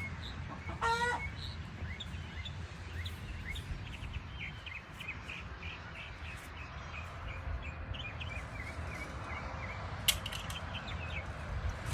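Baby chicks peeping over and over in short, quick chirps that fall in pitch, with one louder, lower call about a second in and a sharp click near the end.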